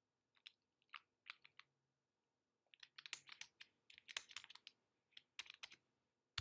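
Faint typing on a computer keyboard, entering a password at a terminal prompt: a few scattered keystrokes, then a quick run of keys in the middle, and a sharper key press at the very end.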